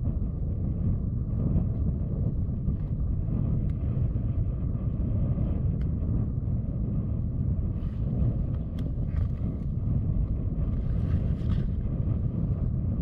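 Wind buffeting the microphone out on the ice, a steady low rumble, with a few faint clicks and brief rustles.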